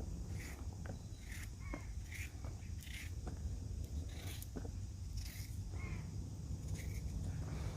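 Short harsh bird calls, like a crow cawing, repeated every half second to a second, over a steady low rumble with scattered light clicks.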